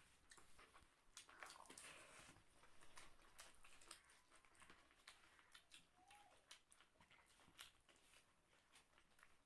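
Faint eating sounds: chewing, with soft smacks and many small clicks scattered throughout.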